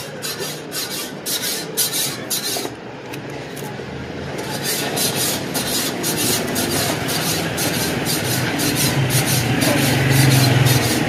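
Plastic shrink-wrap on a phone box scratching and crinkling under the fingers as the box is held and turned, in short repeated scrapes about three a second. A low rumble builds up under it from about eight seconds in.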